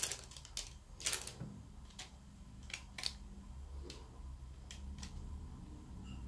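Light, irregular clicks and taps, about ten in a few seconds, as hands and a plastic modelling tool press holes into balls of cookie dough on a parchment-lined metal baking tray. A faint steady low hum lies underneath.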